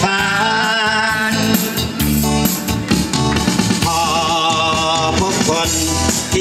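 Loud dance music with a wavering lead melody line.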